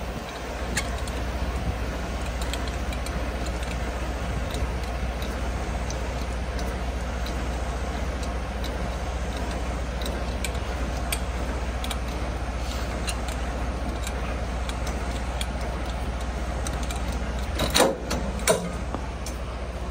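Tractor-trailer's diesel engine running with a steady low rumble, with scattered light metallic ticks. Near the end, two loud metallic clanks as the trailer's sliding tandem locks in place.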